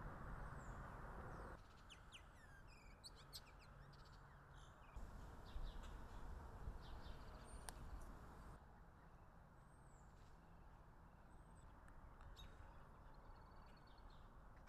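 Faint birdsong: scattered short chirps and whistled calls from small birds over a low background rumble.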